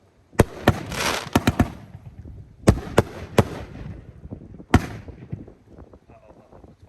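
Consumer firework cakes firing: a burst of sharp bangs with crackle about a second in, then a few spaced single bangs, the last about five seconds in.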